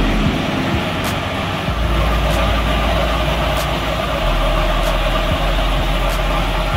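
A motor or engine running steadily with a low hum. A faint high tick repeats about every second and a quarter.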